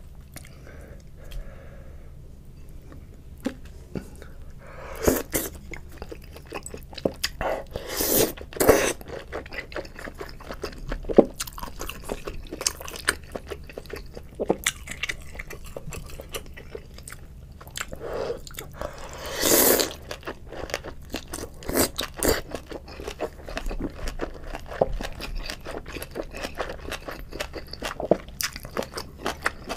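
Close-miked eating of noodle soup: steady wet chewing with small crunches and clicks, and a few longer, louder slurps of noodles about five, eight to nine, and twenty seconds in.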